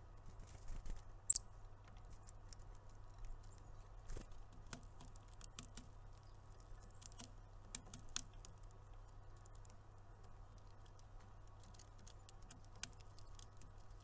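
Irregular light clicks and taps of birds pecking at seed and at a pine-cone feeder, with one sharper click about a second in. A faint steady low hum lies underneath.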